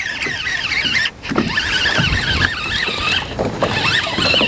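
Baitcasting reel being cranked fast to bring in a hooked bass, its gears giving a high whine that wavers with the cranking. A few dull low knocks sound under it.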